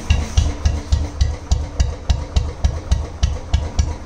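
Royal Enfield Classic single-cylinder engine idling, an even beat of exhaust pulses from the silencer with a sharp tick on each beat.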